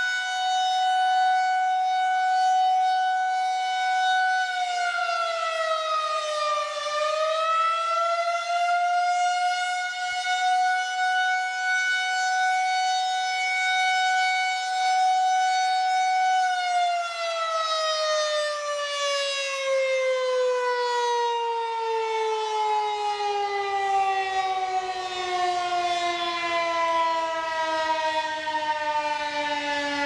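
Federal Signal 2001-SRNB rotating electromechanical tornado siren sounding a steady single tone during a test. Its pitch dips and recovers about five seconds in, then from about sixteen seconds in falls steadily as the siren winds down.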